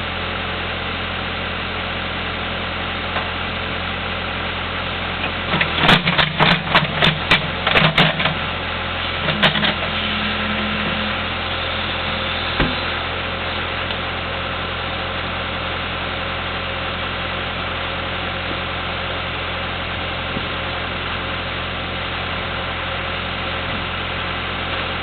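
An engine idling steadily, with a quick run of about eight sharp knocks around six to eight seconds in and a few single knocks shortly after.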